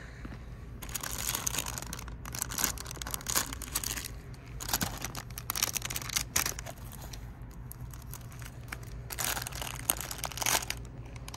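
Clear plastic cellophane packaging crinkling as it is handled, in three bouts of crackling with a lull about two-thirds of the way through.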